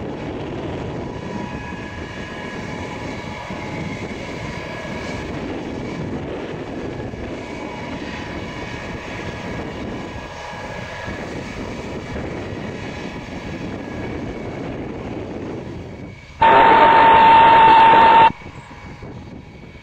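Tupolev Tu-154M's three Soloviev D-30KU-154 turbofans running at taxi power: a steady jet rumble with a high whine. Near the end, a sudden loud burst of radio noise with a steady high tone cuts in for about two seconds and stops abruptly.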